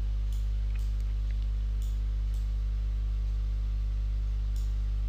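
Steady low electrical hum on the recording line, a mains buzz with its overtones, with a few faint mouse clicks scattered through it.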